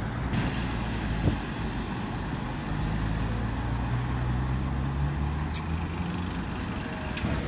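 A vehicle engine running at a steady low pitch through the middle few seconds, over general road and street noise, with a single knock about a second in.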